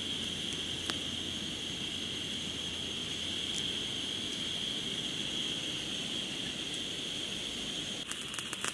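Beef and garlic sizzling in a hot pan: a steady hiss with a few faint pops, breaking into a burst of crackling near the end.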